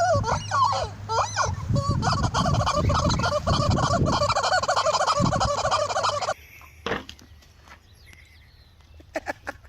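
Farm fowl calling in a loud, dense chorus of rapid, warbling calls, several birds at once. The chorus cuts off suddenly about six seconds in, leaving a few scattered clicks and knocks.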